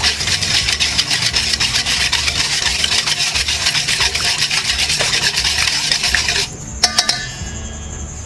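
A stirring utensil scraping quickly and continuously against a stainless steel bowl as sugar-water syrup is stirred. It stops about two-thirds of the way through, followed by two sharp knocks.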